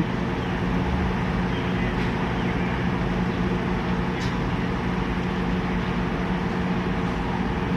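An engine running steadily, a constant low hum with a rumble underneath.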